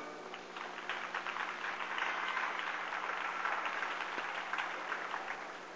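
Audience applauding: many hands clapping, building within the first second and thinning out near the end.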